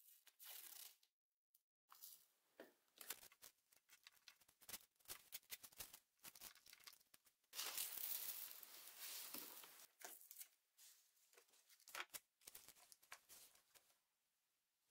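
Brown masking paper handled by hand: short, irregular crinkles and crackles as it is folded and pressed around a drill part, with a longer tearing, crumpling stretch about eight seconds in. It is being wrapped around parts to mask them before spray painting.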